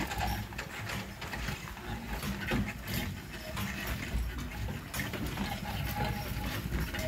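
Horse-drawn sleigh moving over packed snow: the horse's hooves plod, with irregular clicking and rattling from the sleigh and harness.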